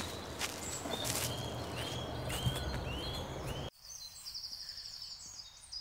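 Outdoor birdsong: a bird repeats a short arched note about four or five times, with footsteps on grass and a low rumble underneath. After a sudden cut near the middle the rumble stops, and a quieter, fast, high trill follows.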